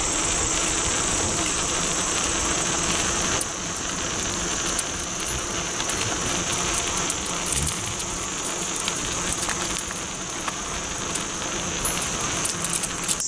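A bicycle ride along a paved trail: wind rushing over the microphone and tyres rolling on the asphalt, a steady rush that eases slightly about three and a half seconds in. A steady high insect chorus, crickets, sounds behind it.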